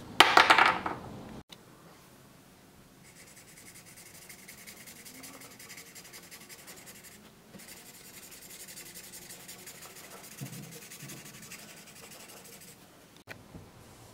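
A short loud clatter in the first second, then a felt-tip marker scrubbing quickly back and forth over bare filed spring steel as it inks a stripe along the blade, a faint fine scratching.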